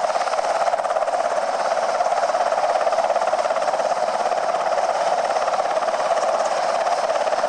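Sikorsky UH-60 Black Hawk helicopter running, a steady noise with a fast, even pulsing throughout.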